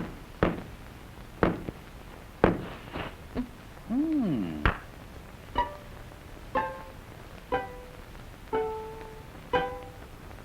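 Early cartoon soundtrack: sharp knocks about once a second, a short up-and-down pitch glide midway, then short plucked string notes, one each second.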